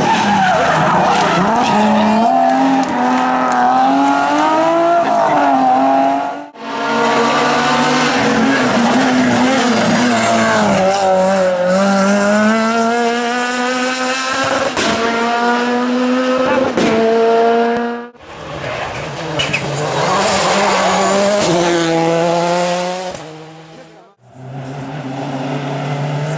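Rally cars at full throttle one after another, engines revving up and down hard through the gears, with sudden cuts from one car to the next. An older BMW 3 Series rally car is heard first and a Peugeot 206 rally car last.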